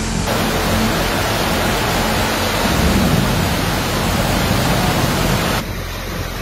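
Heavy rainstorm: a dense, steady rushing noise of pouring rain, wind and running floodwater. It drops abruptly to a slightly softer storm hiss about five and a half seconds in.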